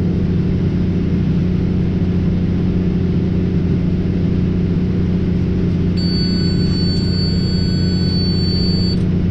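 Tractor engine running steadily while pulling a round baler. About six seconds in, a steady high electronic beep sounds for about three seconds and stops, typical of a baler monitor signalling that the bale chamber is full.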